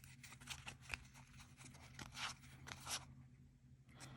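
Faint rustling of trading cards being slid and flipped through by hand: a few short swishes in the first three seconds, then quieter.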